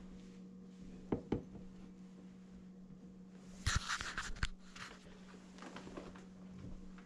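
Two light knocks, then about a second of rustling with clicks as the camera is swung about, over a steady low hum.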